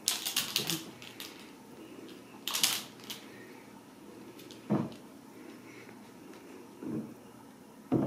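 Ragdoll kittens at play on a rug: a quick run of clicks and rattles at the start and a short rustle a couple of seconds in, then three soft thumps about two seconds apart.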